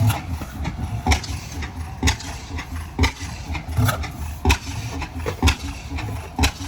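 Large old stationary engine firing slowly while it is being started, with heavy exhaust thumps about once a second over a low rumble.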